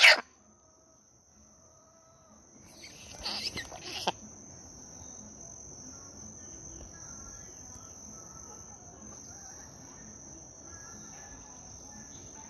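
Insects buzzing with a steady high-pitched tone. About three seconds in there is a brief burst of rustling with a few sharp knocks, and faint short chirps sound now and then in the background.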